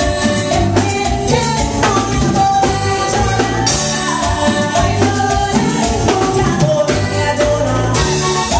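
Live band music: a woman sings lead over strummed acoustic guitar and a drum kit with a steady beat.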